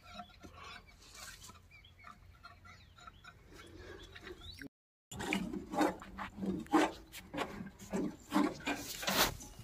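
Faint clicking and rubbing from hands and tools working on the combine-thresher, then, after a brief silent break, a louder run of irregular knocks, clinks and scrapes.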